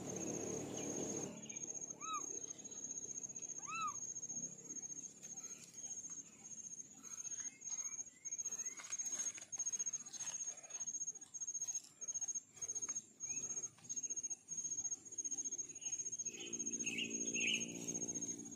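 An insect, cricket-like, chirping in a steady rhythm of about two high chirps a second, with two short high kitten mews about two and four seconds in and a longer, lower meow near the end.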